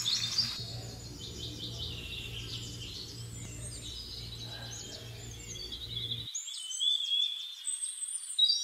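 Small birds chirping and singing in quick trills, over a low steady hum that cuts off suddenly about six seconds in.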